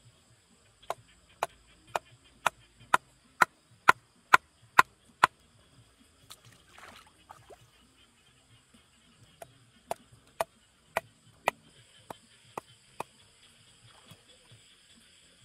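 Repeated sharp blows, about two a second: ten strikes, the middle ones loudest, a short rustle, then eight more strikes.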